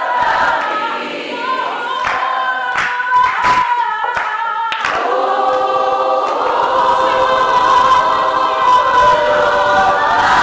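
Small worship choir of mixed voices singing a cappella, held notes swelling and overlapping, with a few sharp hand claps between about two and five seconds in.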